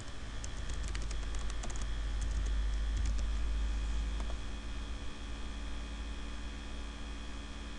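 Steady hum of a laptop cooling pad's fans with a low rumble underneath, and a scatter of light computer clicks in the first two seconds or so.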